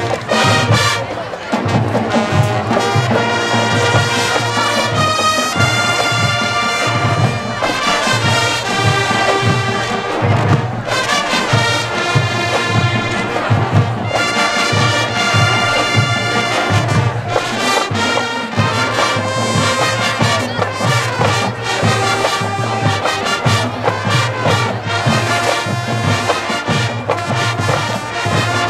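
Marching band playing a brass-led tune, with the drumline keeping a steady beat underneath.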